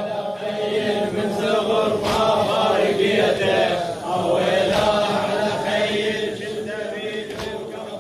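Group of mourners chanting a Shia latmiyya together, many voices blended into one chorus. It gradually gets quieter over the second half.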